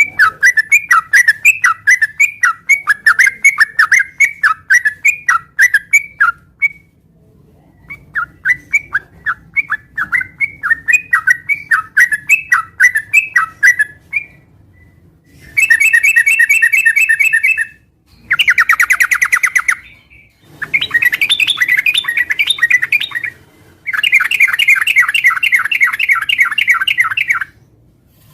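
Yellow-vented bulbul (trucukan) singing loudly. There are two runs of quick chirping notes, several a second, with a short pause between them. From about halfway through come four bursts of rapid buzzy trills, each two to three seconds long.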